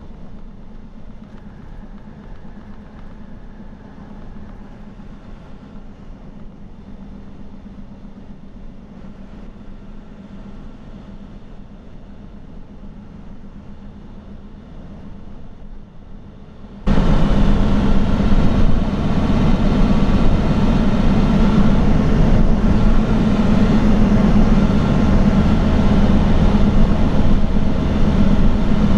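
Steady engine and road-noise drone inside a truck cab at highway speed. About seventeen seconds in, it abruptly becomes much louder and brighter and stays that way.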